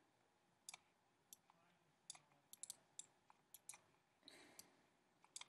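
Near silence broken by about a dozen faint, irregular clicks of a computer mouse as brush marks are painted on screen.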